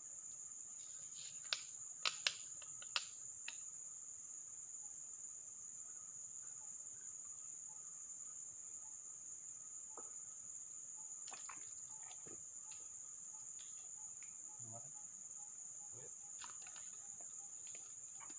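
A steady, high-pitched insect chorus, with a few sharp clicks in the first three seconds and another near the middle.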